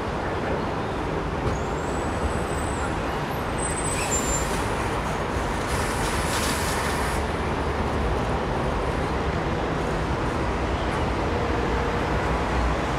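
Busy city street traffic: a steady mix of passing cars and buses. A hiss of a few seconds rises over it around the middle.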